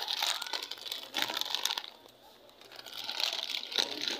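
Plastic crinkling in three bursts, with fine crackles like a plastic bag or wrapper being handled.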